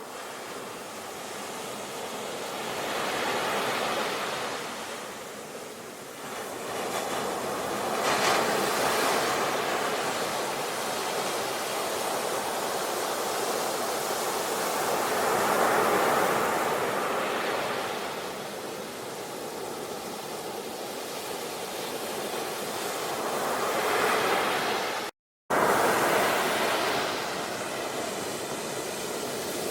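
Sea waves breaking and washing ashore, the surf swelling and ebbing every few seconds. The sound cuts out completely for a split second near the end.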